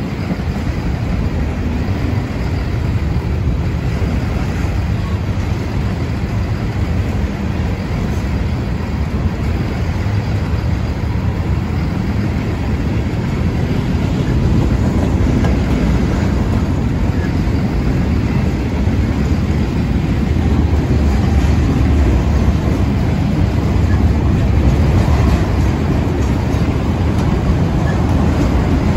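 Freight train cars (covered hoppers, then autoracks) rolling past: a steady, loud rumble of steel wheels on the rails, growing a little louder about halfway through.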